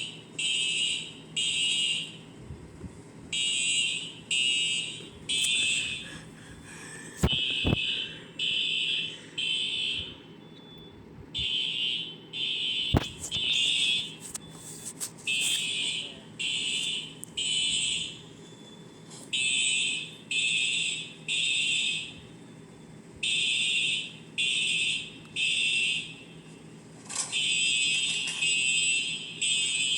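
Fire alarm sounders going off during a test of the building's alarm system: loud high-pitched beeps in groups of three with a pause after each group, repeating steadily (the temporal-three evacuation pattern).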